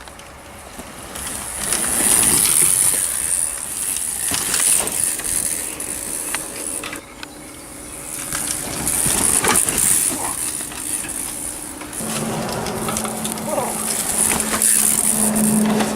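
Mountain bike being ridden over dirt: a rushing hiss of tyres and air that surges and eases, with scattered knocks and rattles from the bike.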